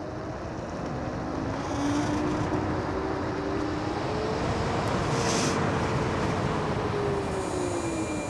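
Electric scooter hub motors whining under wind and road noise as the scooter speeds up and then slows. The whine climbs in pitch through the first five seconds or so, then falls away toward the end.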